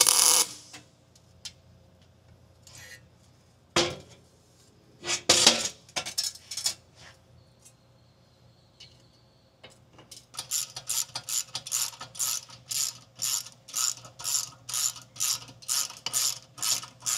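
A MIG welder tack-welds an exhaust downpipe: a loud crackling arc burst right at the start, then a few short tacks a few seconds in. From about ten seconds on, a ratchet wrench cranks a bolt at the turbo, its pawl clicking in a steady rhythm of about two strokes a second.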